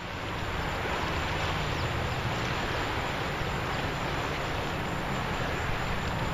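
Steady wind rumble and hiss on the microphone over open water.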